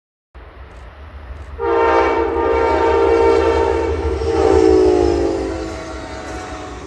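Diesel locomotive air horn sounding one long blast of about four seconds, its pitch dropping slightly near the end, over a steady low rumble.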